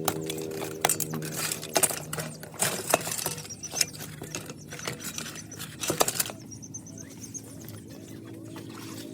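Irregular sharp clicks and taps of hard plastic keyboard parts being handled and worked on, busier in the first several seconds and sparser near the end, over a steady low hum.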